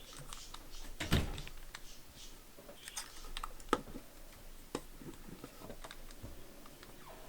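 Plastic 2x2 Rubik's cube being turned by hand, its layers clicking and clacking in irregular quick turns, with a louder clack about a second in.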